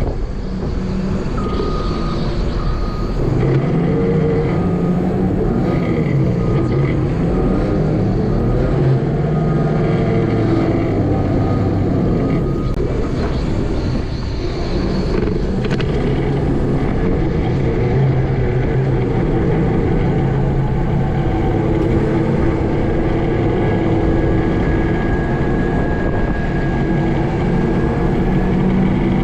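A vehicle engine running steadily and loudly, its pitch rising and falling a little as the throttle changes.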